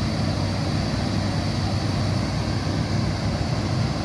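Hitachi ZX210 excavator's diesel engine running with a steady low drone as the boom and arm are moved.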